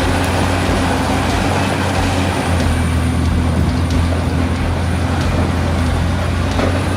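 Liebherr R984C hydraulic excavator's Cummins QSK19 diesel engine running steadily, a deep, even drone.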